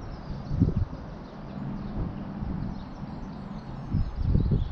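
Wind buffeting the camera microphone, a low rumble that swells in gusts just over half a second in and again near the end, with faint bird chirps above it.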